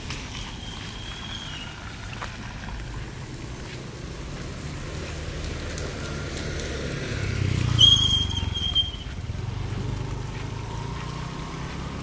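Drizzling rain and trickling water over a steady low rumble of traffic. The rumble swells about two-thirds of the way in as a vehicle passes close by, with a brief high tone at its loudest.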